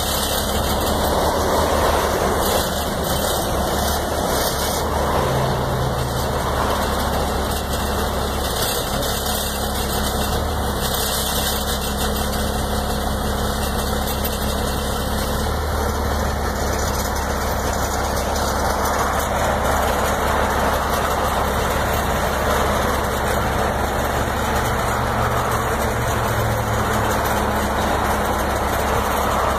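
A vehicle engine idling steadily, an even low drone with no revving.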